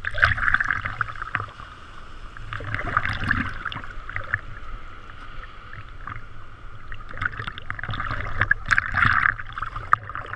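Sea water sloshing and splashing around a camera held at the water's surface, coming in irregular surges, loudest about half a second in and again near the end.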